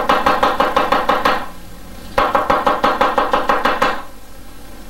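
Chinese cleaver rapidly chopping scallion on a wooden cutting board, about eight chops a second. It comes in two quick runs with a short pause between.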